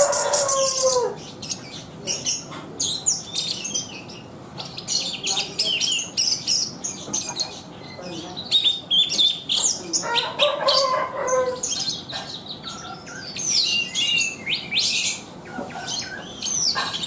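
A thrush (Indonesian 'burung anis') singing vigorously: a long, continuous run of rapid, varied chirps, trills and whistles with hardly a break. A lower-pitched call or voice cuts in at the start and again about ten seconds in.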